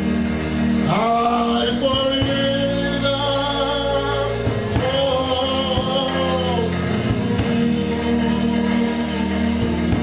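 A man singing a slow gospel worship song into a microphone over steady instrumental accompaniment, holding two long notes: one about a second in and one about halfway through.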